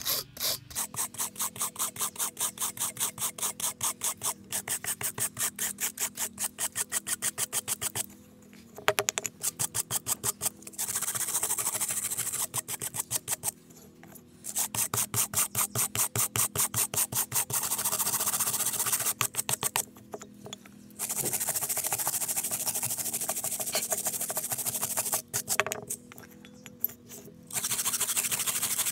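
Hand-held brass wire brush scrubbing rust off a thin rusty metal plate, in quick back-and-forth strokes about four a second, broken by stretches of steady continuous rasping and a few short pauses.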